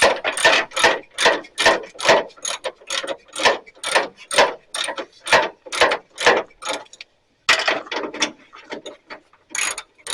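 Hand socket ratchet clicking in quick, even strokes, about four a second, as a bolt is turned. There is a short pause about seven seconds in, then fainter clicks that grow louder again near the end.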